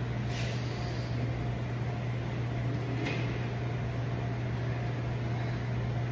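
Steady low mechanical hum with a hiss of background noise, typical of a building's air handling. Two faint clicks sound, one about a third of a second in and one about three seconds in.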